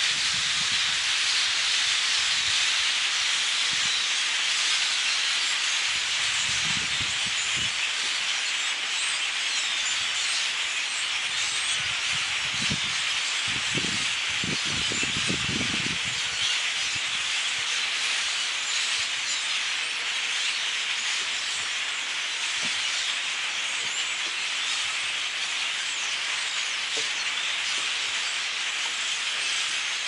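A huge flock of thousands of small birds perched in bare trees, all calling at once in a dense, steady chatter that blends into a hiss.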